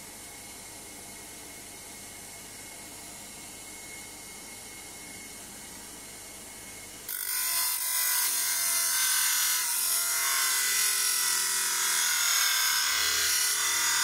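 A faint steady hiss, then about seven seconds in, a loud harsh grinding as a rusty flat steel piece is pressed against the spinning sandpaper disc of a homemade disc sander driven by a washing-machine motor. The grinding carries on steadily to the end.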